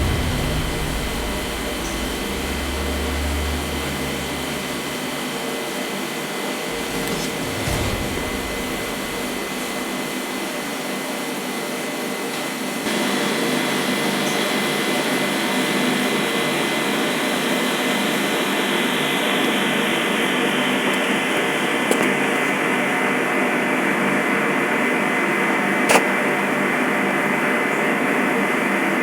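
Steady machine drone with a high whine, getting louder about halfway through; two short clicks near the end.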